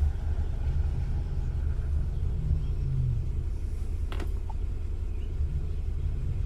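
The 2001 VW Beetle's 1.8-litre turbo engine idling with a steady low rumble. A single sharp click about four seconds in.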